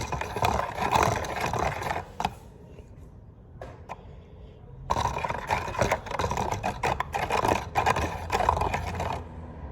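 Rapid scraping and clicking of a utensil stirring a watery slime mix in a container. It comes in two bouts with a quieter pause of about two seconds between them.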